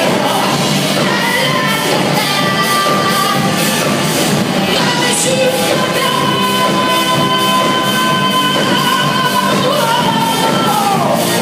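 Live rock band playing through a hall PA: electric guitars, bass and drum kit with singing. A long held note starts about halfway through and bends down near the end.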